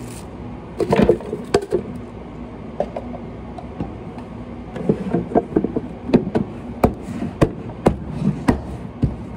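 Irregular knocks and clicks of hard objects being handled and set down on a cafe counter, a few at first and more frequent from about halfway through, over a steady low hum.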